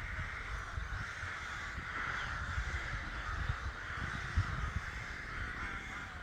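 A colony of ravens calling from their nesting trees, many caws overlapping into a continuous chorus, with a low irregular rumble underneath.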